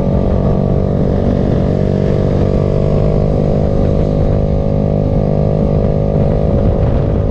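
Motorcycle engine running steadily at an even pitch, as when cruising at a constant speed.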